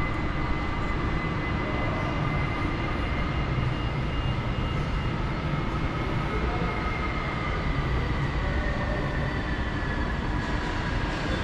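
Steady machinery noise in an aircraft maintenance hangar: a constant low rumble and hiss with faint whining tones that slowly drift lower in pitch.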